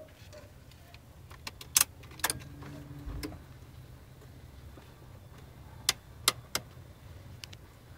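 Sharp, irregular clicking from behind the dashboard of a Nissan 300ZX, with a brief low whir about three seconds in, over a steady low hum. The owner suspects the gears or motors that move the heater box's vent doors.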